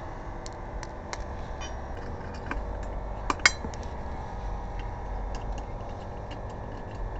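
Light metallic clicks and clinks of lug nuts and tools being handled during a tire change, with a couple of sharper clinks about three and a half seconds in, over a low background rumble.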